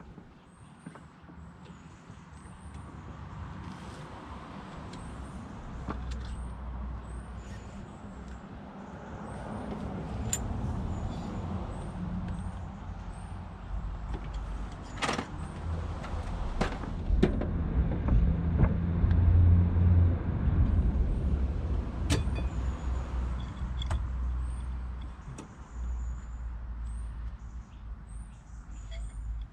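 Rear brake caliper piston on a Mini Cooper R50/R53 being wound back with a caliper rewind tool: handling and scraping noise with several sharp clicks, over a low rumble that grows louder toward the middle.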